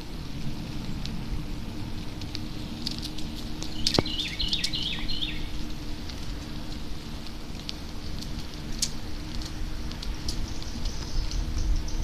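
Bicycle rolling along a paved trail: a steady low hum and rumble with scattered light ticks. About four seconds in, a bird sings a quick run of short descending notes.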